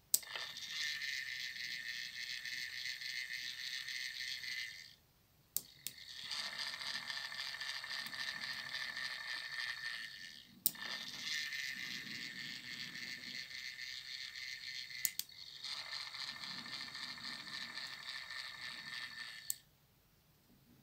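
Tortoise slow-motion stall motor whirring as it drives a plastic rack and pinion that swings model level crossing gates. The whir comes in four runs of four to five seconds each, with a sharp click between runs.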